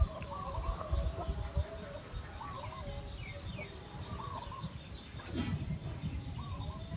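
Birds calling outdoors: one repeats a short warbling phrase about every two seconds while others chirp higher and fainter, over a low rumble.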